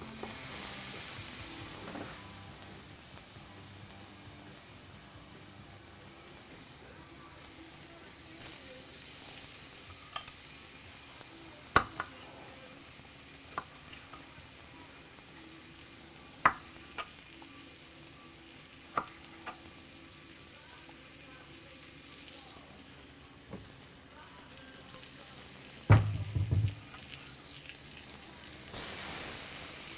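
Food sizzling steadily in a frying pan, with several sharp clicks of utensils against the pan and a louder knock near the end.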